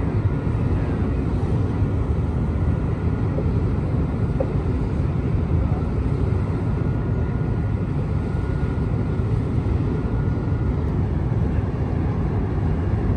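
Large car-carrier ship's engines giving a steady low rumble as it pulls away from the pier.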